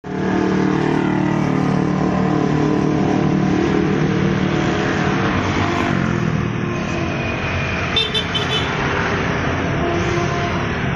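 Road traffic passing close by: a heavy truck's engine running under the hum of passing scooters and motorcycles, with a brief high beeping about eight seconds in.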